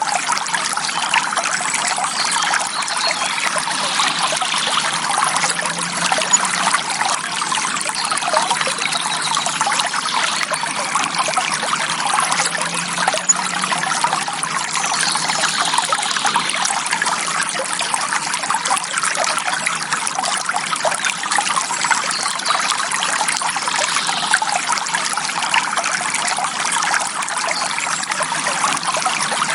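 Shallow forest stream flowing and trickling over stones, a steady bright babbling of water.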